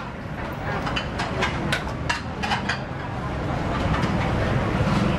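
Busy street-market ambience: several sharp metallic clinks of ladles and dishes against metal cooking pots at a food stall, over a low traffic rumble that grows louder in the second half as a vehicle passes.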